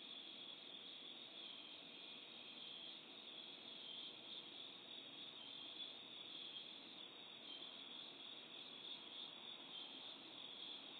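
Crickets chirping in a faint, continuous high trill that swells slightly at times.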